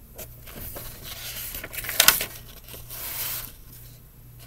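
A picture book's page being turned by hand: paper rustling, with a sharp crackle of the page about two seconds in.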